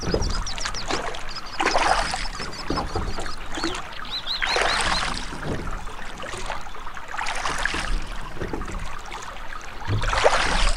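Water surging and washing in regular swells about every three seconds, with small birds chirping high in between.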